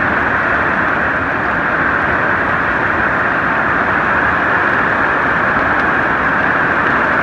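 Heavy storm rain pouring steadily onto a corrugated metal roof, a dense, even roar of rain.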